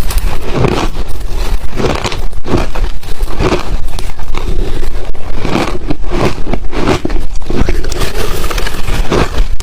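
Close-miked chewing of ice: a loud, dense run of crunching and crackling, one crunch after another with no pause.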